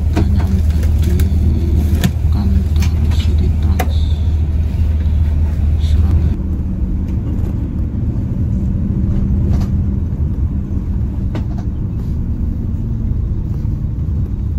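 Bus running on the road: a steady low rumble of engine and tyres, with scattered clicks and rattles. The rumble changes abruptly about six seconds in.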